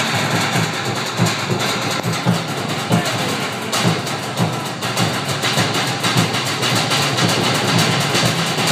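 Live Polynesian drumming from a small ensemble with a large drum and smaller drums, beating a steady, driving rhythm as accompaniment to a fire-knife dance.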